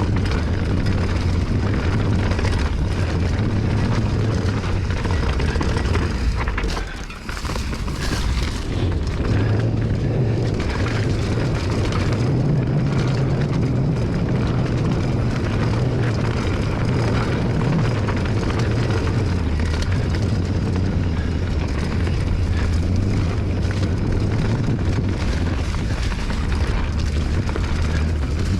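Wind buffeting the microphone and the rumble of a mountain bike rolling fast over rough trail, steady and loud, easing briefly about seven seconds in.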